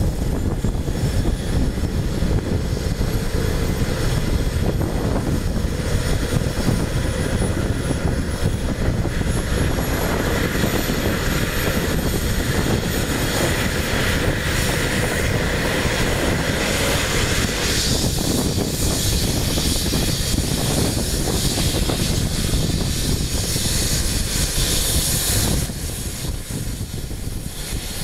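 Eurocopter EC135 rescue helicopter running up on the ground: its twin turbine engines give a high whine that rises steadily in pitch through the first half, over a heavy rumble from the turning rotor. The whole sound drops suddenly near the end.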